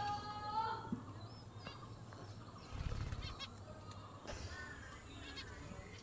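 Faint chirps of small caged aviary birds. A long steady tone runs until about a second in, and a brief low rumble comes around the middle.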